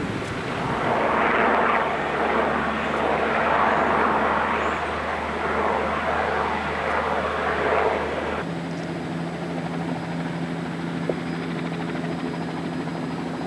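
Vickers Viscount's Rolls-Royce Dart turboprops running with a loud rushing roar as the aircraft taxis. After a sudden cut about two-thirds of the way in, a quieter, steady drone follows from a Viscount on approach with one of its four engines shut down.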